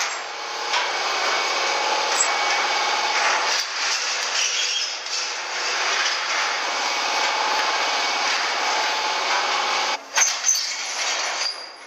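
Steel rim-carrying trolleys rolling and scraping along the rails of a homemade powder-coating curing oven, a continuous metallic rumble with a faint wavering squeal that breaks off briefly about ten seconds in.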